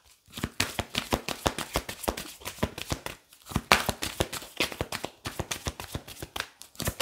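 A deck of tarot cards being shuffled by hand: a quick, continuous run of card clicks and rustles, with a short break about three seconds in.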